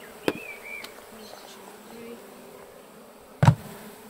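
A swarm of honeybees buzzing steadily, with a light click near the start and one loud knock about three and a half seconds in as the plastic compost-bin lid is whacked against the wooden hive box to shake the bees off into it.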